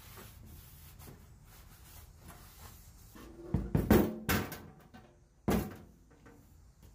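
Knocks and clunks of objects being handled in a workshop: a quick cluster of clunks about three and a half seconds in, then one sharp knock about a second later, with a few faint ticks before.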